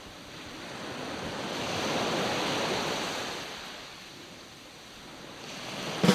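A wash of rushing noise like surf, swelling to a peak about two seconds in and ebbing away again, between pieces of music.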